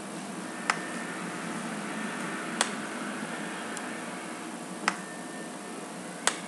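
Computer mouse clicking four times, sharp single clicks spaced a second or two apart, over a steady microphone hiss.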